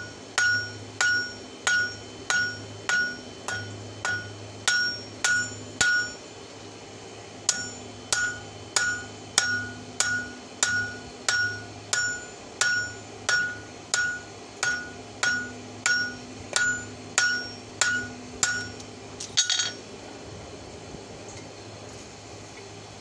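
Hand hammer striking red-hot steel on an anvil, forging the open end of an old wrench into fork tines: steady blows about one and a half a second, each with a clear ringing note. There is a short pause about six seconds in, and the blows stop near the end with a final clank.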